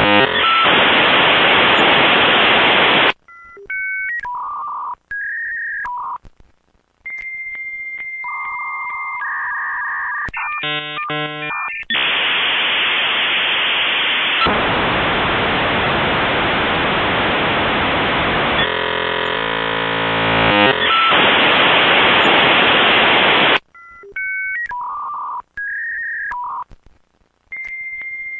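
Dial-up modem handshake: loud hiss that stops about three seconds in, then a string of steady beeps at shifting pitches and a short buzzy chord, then a long stretch of loud hiss, and the beeps begin again near the end as the handshake loops. The sound is thin and cut off at the top, as a phone line carries it.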